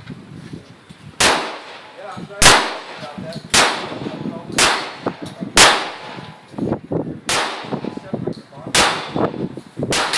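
Gunshots at a shooting range: a string of about eight shots, roughly one a second, each sharp crack followed by a short ring-out.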